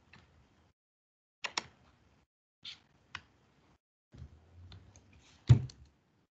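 Scattered clicks from a computer mouse and keyboard, several coming in quick pairs. Near the end there is a patch of soft desk handling and one louder dull knock.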